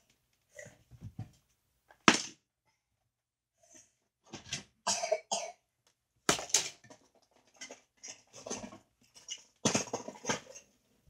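Toy minicars clattering and clicking against each other and the plastic storage bin as a child's hand rummages through the pile, in irregular bursts with a sharp click about two seconds in.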